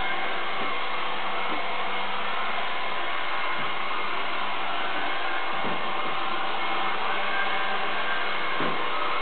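Robot vacuum cleaner running on a tiled floor: a steady whirring hum, with a few soft knocks.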